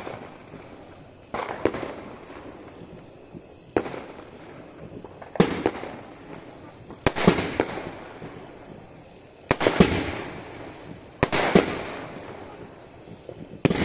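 Fireworks going off: about seven sharp bangs, one every one to two seconds, each trailing off as it dies away, from small aerial shells bursting into sparks.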